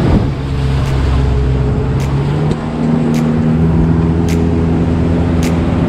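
Small fishing boat's motor running under way, with wind and water rushing past the hull; the engine note steps up slightly about two and a half seconds in. Light sharp ticks recur about once a second.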